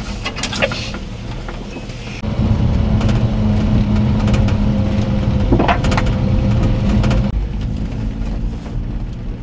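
Japanese mini truck's small three-cylinder engine running while driving on a rough dirt track, heard from inside the cab, with a few clatters and knocks from the cab over bumps. The engine gets louder about two seconds in and eases off about seven seconds in.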